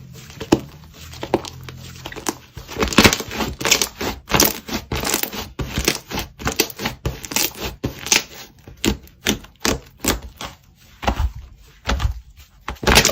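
Slime being squished and poked by hand, giving quick, irregular clicks and crackles, several a second.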